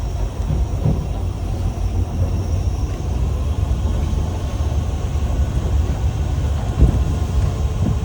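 A motorboat's engine runs steadily underway, a continuous low rumble with wind and water noise over it. A brief thump comes about seven seconds in.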